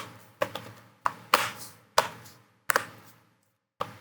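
Plastic bottom cover of an HP Fortis 14 G11 laptop being pressed shut, its clips snapping into place one after another. There are about eight sharp snaps at an uneven pace, roughly two a second.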